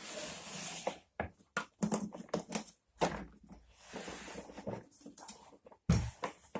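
Camera being picked up and moved by hand: rubbing and rustling handling noise with scattered knocks and clicks, and a heavier knock near the end as it is set down.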